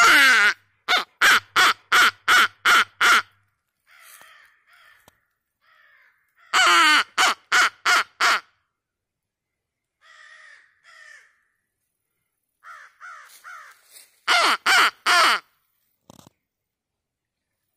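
Crows cawing: three loud runs, each a longer, drawn-out caw followed by a quick string of short caws. Much fainter caws come in the gaps between them.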